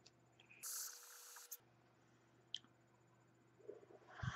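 A short breathy hiss, about a second long, of a person vaping an e-cigarette, followed by near silence with a few faint clicks near the end.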